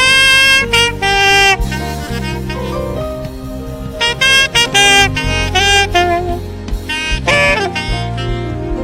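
Saxophone playing a gospel melody of long held notes with vibrato over a sustained bass and keyboard backing. A quick falling run comes about seven and a half seconds in.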